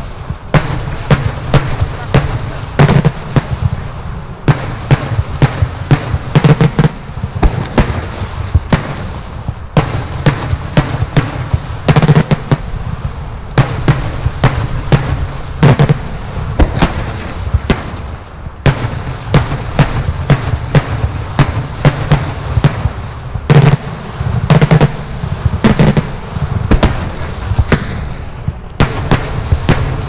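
Daylight aerial fireworks salutes bursting in rapid succession: loud, sharp bangs several a second without a break, over a steady low rumble.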